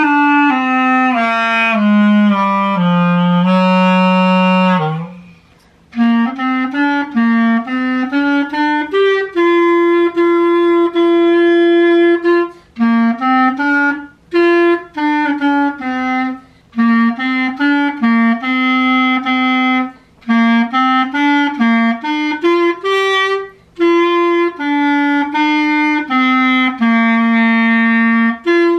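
Solo clarinet playing a melody note by note, in phrases broken by short pauses, with a longer held note about ten seconds in.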